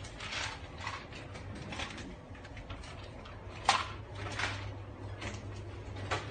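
Indoor shop room tone: a steady low hum with scattered soft knocks and rustles at irregular moments, and one sharper click a little past halfway.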